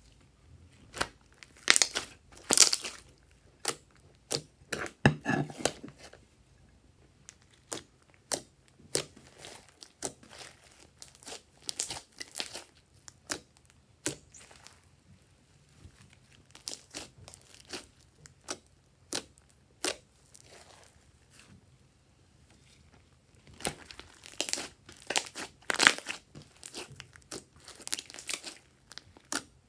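Hands stretching, poking and pressing glitter slime, making many short sharp pops and clicks in quick clusters with pauses between. The densest clusters come about two seconds in and again near the end.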